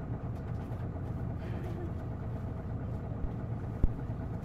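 Isuzu Erga (PKG-LV234L2) city bus's diesel engine running steadily, heard from inside the cabin. There are two sharp clicks a little over three seconds in, the second louder.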